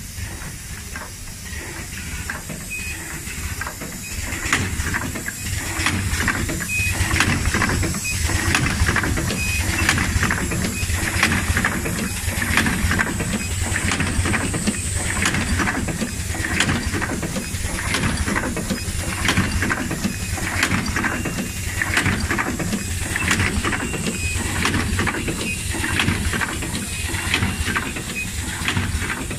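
SKP-1N rotary aluminium coffee capsule filling and sealing machine running: a hissing, clattering cycle repeats about once a second over a steady low hum. It grows louder over the first few seconds, then holds steady.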